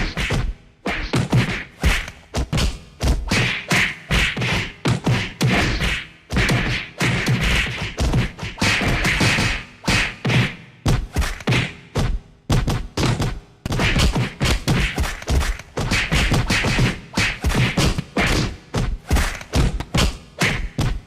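Rapid run of percussive thumps and clicks, several a second, with a few short pauses.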